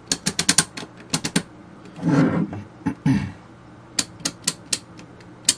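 Detented rotary control knob on an avionics VHF control box being turned, its gear mechanism clicking in quick runs of sharp clicks. A short rustling noise about two seconds in.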